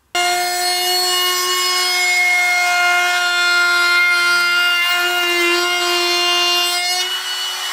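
Ridgid trim router running with a 1/4-inch roundover bit, rounding over the edges of a wooden handle: a steady high whine that starts abruptly and eases slightly near the end.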